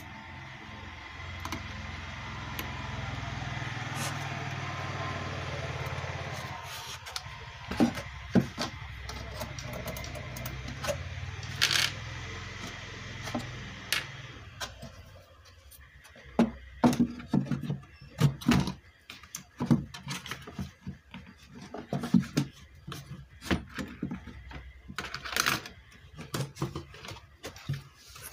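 Scattered knocks, clicks and clatter of a subwoofer amplifier board with its aluminium heat sink and the wooden cabinet panels being handled and fitted back together; the knocks come thick and fast in the second half, over a steady background noise in the first half.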